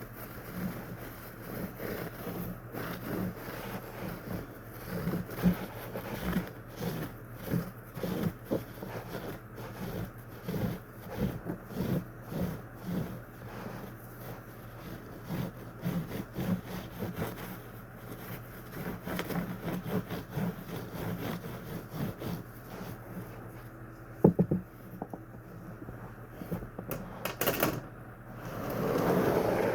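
Irregular taps, knocks and rubbing from hands handling the plastic parts of a box fan being cleaned, with one sharp loud knock about 24 seconds in. A steady low hum sits underneath.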